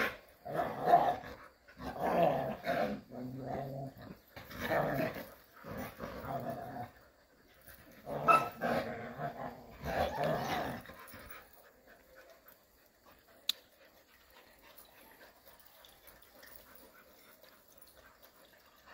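Jindo dogs play-fighting, growling in repeated bursts for the first eleven seconds or so, after which the scuffle goes quiet, broken only by a single sharp click.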